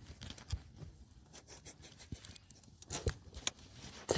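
Handling noise from a freshly caught fish being held and turned in the hands: irregular rustling with small clicks and taps, a couple of louder taps about three seconds in.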